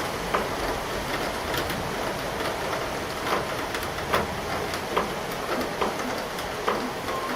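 Steady rain from a summer thunderstorm, an even hiss with heavier drops striking a nearby surface in scattered, irregular sharp ticks.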